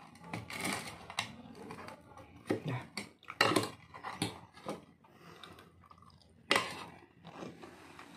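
Close-up eating sounds: chewing and crunching of fried vegetable fritters (bakwan), with a fork and spoon scraping and clinking against the bowl as the fritters are cut up. Irregular sharp clinks and crunches with short pauses between, the loudest about three and a half and six and a half seconds in.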